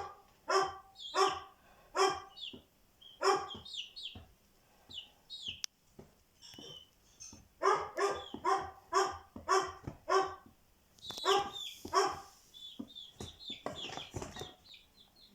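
A dog barking repeatedly in two runs of barks about half a second apart, with a pause of a few seconds between them. Small birds chirp high in the gaps.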